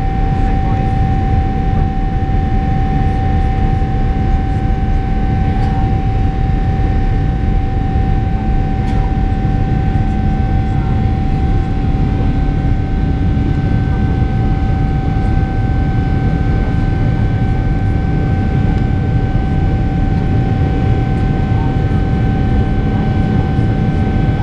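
GE90-115B turbofan of a Boeing 777-300ER heard from the cabin at climb power just after takeoff: a loud, steady rumble with steady whining tones from the engine over it.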